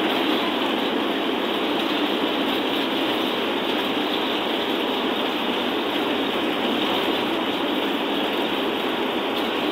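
Steady road and engine noise of a bus driving at speed, heard from inside the cab: an even rushing noise with no change in pitch.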